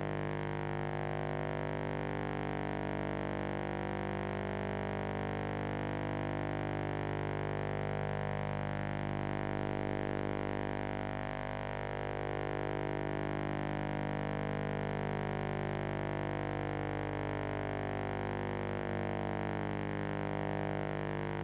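Background music: one long held chord that slowly wavers, with no beat.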